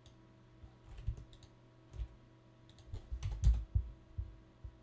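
Scattered clicks and taps of a computer keyboard and mouse at the desk, sparse at first, then a quick cluster about three seconds in.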